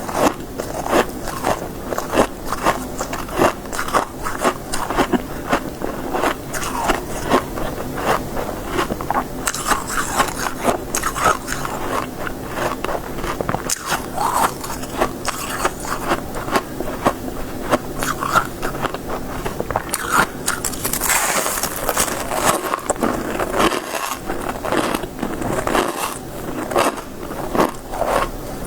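Biting and chewing crisp, frosty freezer ice: a continuous run of dense crunches.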